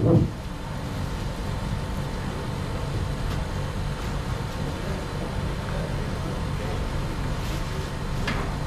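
Steady low rumble of background noise with a faint, even mechanical hum, and faint voices further off.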